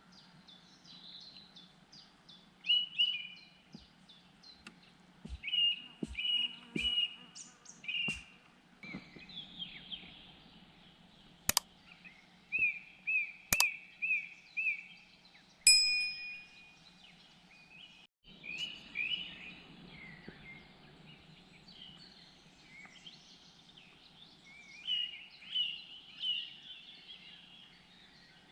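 Wild birds singing: short repeated chirping phrases come again and again. A few sharp clicks and knocks fall in the middle, one of them with a brief metallic ring.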